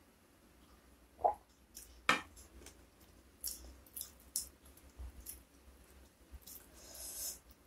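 A swallow of water about a second in, then a heavy glass mug set down on the table with a sharp knock. After that, fingers work through rice and wet sambal with a string of soft, sticky squishes and clicks, the longest squish near the end.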